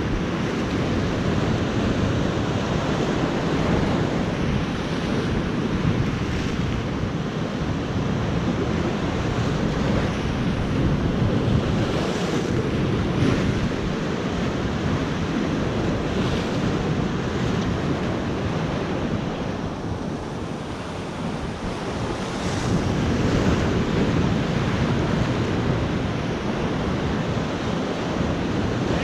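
Sea surf breaking and washing against a rocky shore, a steady rushing with slow swells, with wind buffeting the microphone.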